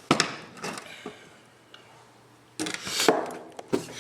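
Handling noises: a few sharp clicks and knocks, then a short spell of rustling and clattering with more clicks, as small parts of a power steering pump are handled.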